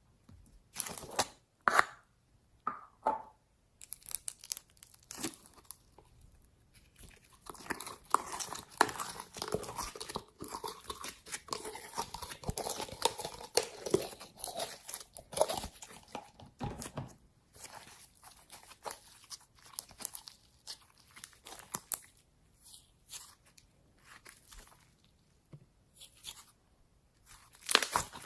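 Slime being squeezed and stretched by hand: irregular sticky crackles, pops and tearing sounds, sparse at first and thickest in the middle.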